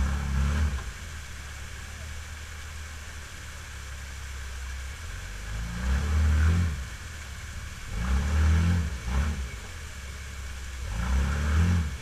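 Side-by-side off-road vehicle's engine revved hard in four short bursts, rising in pitch each time, with a steady lower drone between them as it strains to climb a waterfall ledge. Rushing water from the falls is heard underneath.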